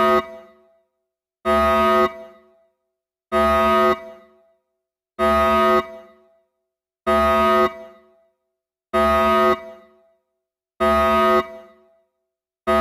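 Alarm horn sounding in loud, steady, buzzy blasts, each about half a second long with a short fading echo, repeating evenly about every two seconds.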